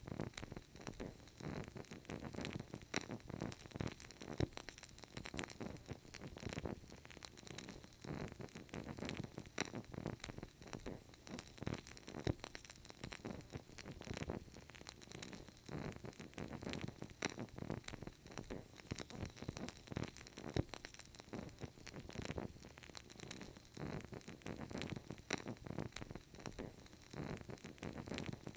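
Burning candle crackling: a dense run of small, irregular crackles and pops over a faint steady hiss.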